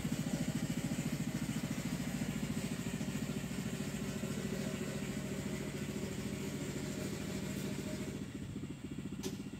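Tabby cat purring, a steady, rapid low rumble. A single faint click sounds near the end.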